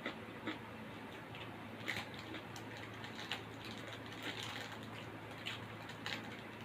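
Close-up eating sounds: irregular soft clicks and wet smacks of chewing, over a low steady hum.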